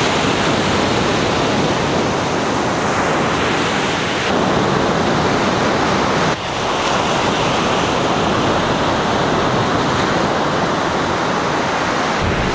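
Ocean surf breaking and washing up a sandy beach: a steady rush of wave noise.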